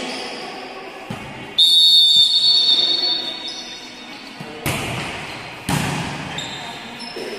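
Volleyball struck twice, about a second apart, each hit echoing around a large gymnasium hall. Earlier, about a second and a half in, a high ringing tone starts suddenly and fades away over about two seconds.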